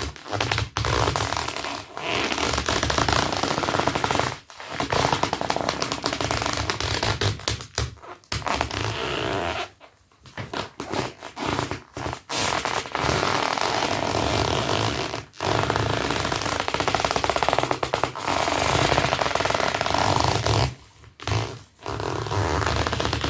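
Dr Martens boots rubbed against each other, squeaking loudly in long runs of rapid squeaks with a few brief pauses between them.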